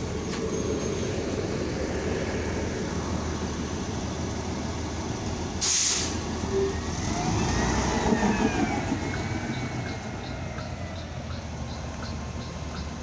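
New Flyer Xn40 city bus and its compressed-natural-gas engine running at the curb. About six seconds in comes a short sharp hiss of air as the brakes release. The engine then revs up as the bus pulls away, with a whine that rises and falls.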